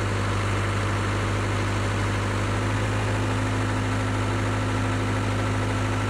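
Case backhoe's diesel engine running steadily at a constant speed, a low even hum with a faint steady high whine above it, while the backhoe arm is worked.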